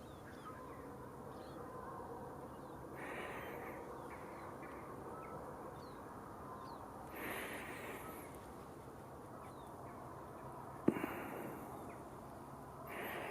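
Heavy breathing close to the microphone: three slow breaths, about one every four to five seconds, over a faint outdoor background with a few distant bird calls. A single sharp knock comes about two-thirds of the way through.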